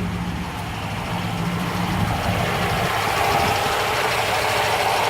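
1973 Rover P6 3500S's V8 engine running steadily at a raised idle while its idle screws are being turned down to bring the revs toward 750–800.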